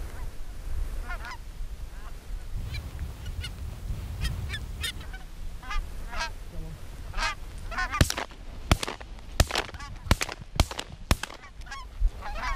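Canada geese honking, many short calls in quick succession. From about eight seconds in comes a rapid string of shotgun shots, about eight in four seconds, as the hunters open fire.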